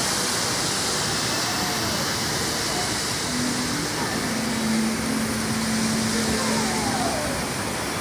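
Steady outdoor rushing noise with faint distant voices, and a low steady hum for a few seconds midway.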